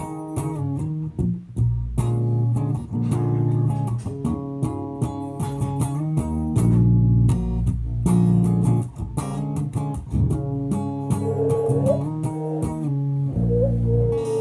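Background music: a guitar-and-bass track over a steady beat, with a lead line bending between notes near the end.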